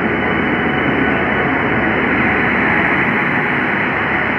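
Indian Railways locomotive running beside the platform: a loud, steady mechanical noise that does not let up.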